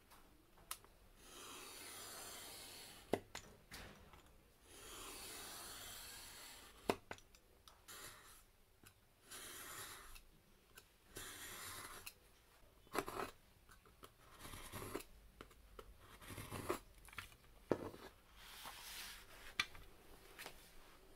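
Utility knife blade drawn along a ruler, slicing through a sheet of card in several long scraping strokes, with a few sharp clicks between the strokes.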